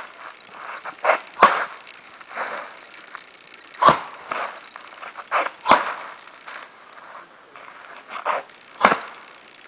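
Heavy foot stamps on packed dirt from a Baji Quan form, four sharp thuds spread through, with shorter swishing bursts of the martial artist's strikes and movements between them.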